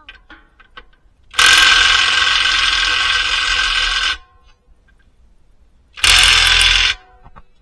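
Cordless power wrench spinning on a suspension arm bolt in two runs, one of about two and a half seconds and a shorter one near the end. The bolt does not come off from this side, which is held by a lock against the frame.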